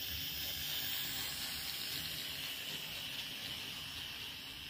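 Electric model railway train running along the track close to the microphone: a steady whirring hiss from the motor and wheels, swelling about a second in and slowly fading toward the end as it passes.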